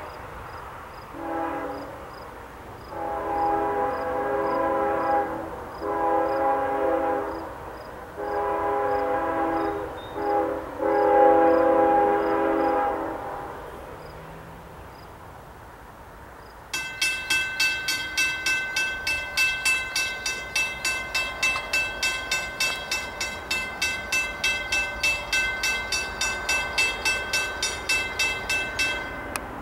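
Freight locomotive air horn sounding a string of chord blasts, long ones with a short one near the end, the grade-crossing warning of an approaching train. A few seconds later the crossing's warning bell starts suddenly and rings about twice a second, stopping just before the end.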